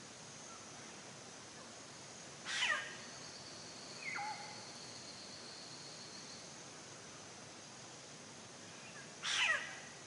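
Steady background hiss with two short, sharply falling animal calls about seven seconds apart, and a fainter falling call between them.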